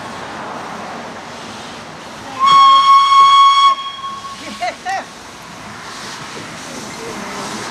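Steam tram motor's whistle sounding one steady note for just over a second, about two and a half seconds in, over a steady hiss of steam from the engine.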